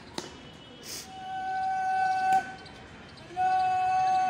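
A drill commander shouting two long, drawn-out words of command. The first swells louder and is cut off sharply, and the second starts abruptly just past the middle and is held steady.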